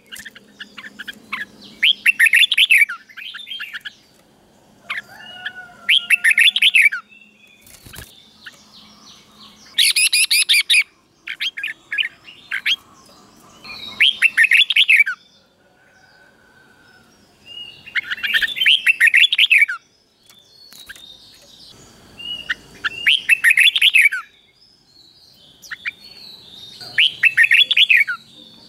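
Red-whiskered bulbul singing: short, quick phrases of chirpy notes, repeated every few seconds with brief pauses between them.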